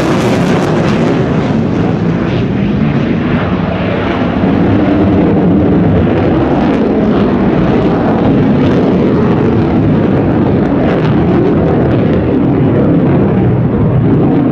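Chengdu J-20 fighter's twin jet engines in afterburner as it climbs away: a loud, steady roar with a ragged crackle. The high hiss fades in the first couple of seconds while the deep rumble holds and grows slightly louder about halfway through.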